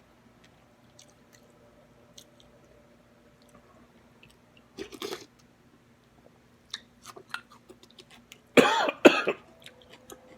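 Close-up eating sounds from a person eating pho: faint chewing clicks and a short burst about five seconds in, then a loud double cough or throat-clearing near the end.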